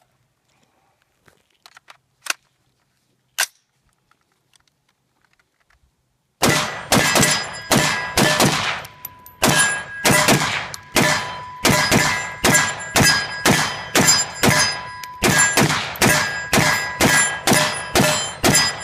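AR-15 short-barrel rifle with a 7.62x39 upper and a cookie-cutter muzzle brake fired semi-automatically in fast strings, about three shots a second, with a short pause about nine seconds in. Before the shooting starts there are only a few faint clicks of the rifle being handled.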